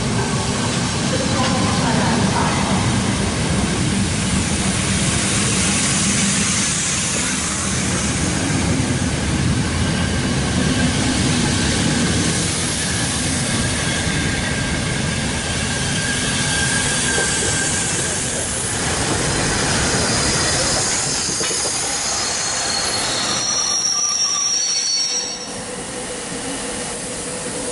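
Railway coaches rolling past close by, the wheels rumbling on the rails with a steady, high squeal from the wheels on the curve. About 25 s in, the sound drops sharply quieter.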